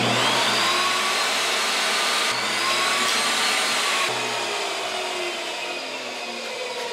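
Chicago Electric bench table saw switched on, its motor whine rising as the blade spins up. From about two to four seconds in, the blade rips a thin test strip from a wooden block. Then the saw is switched off and its whine slowly falls as the blade coasts down.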